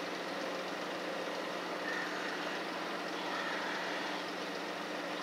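Engines running steadily at idle: an even, low hum with a constant drone under it.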